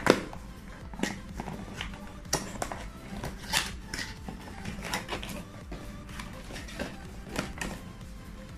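Paperboard retail box being opened by hand: the seal on the lid is peeled and the flaps are pulled open, giving a series of sharp cardboard crackles and snaps, the loudest right at the start, over faint background music.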